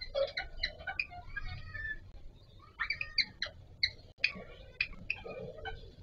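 Indian ringneck parakeets, a mating pair, chattering in quick, squeaky high chirps and clicks that come in clusters with short pauses.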